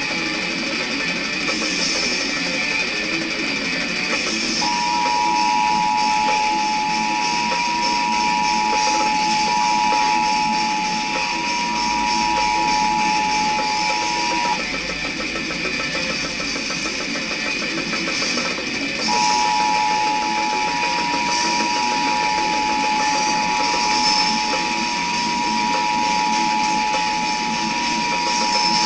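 Rock music with guitar and drums, with the Emergency Alert System two-tone attention signal laid over it: a steady electronic tone of two close pitches sounding together. About five seconds in the tone starts, and after about ten seconds it cuts off abruptly. Some four seconds later it starts again: the alert tone choking partway through.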